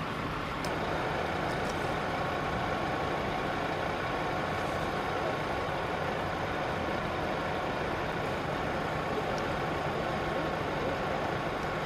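Large diesel engine idling steadily, the sound of a fire truck left running, a constant hum that steps up slightly a little under a second in.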